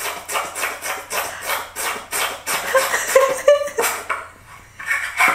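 Rainbow foam slime being poked over and over with a fingertip, giving a quick, even run of short popping squishes, about four a second, that thins out near the end.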